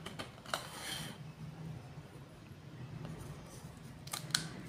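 Plastic LED bulb housing being handled and opened by hand: a few light plastic clicks and a short scrape, over a low steady hum.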